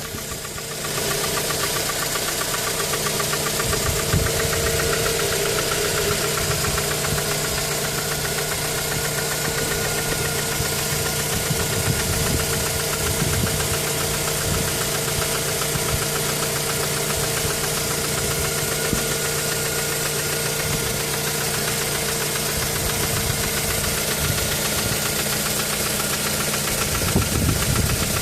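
Mazda 3 petrol engine running at idle with a knocking noise and uneven low thumps. The knock began after the spark plugs were changed, and the owner reports a misfire when the car is stationary.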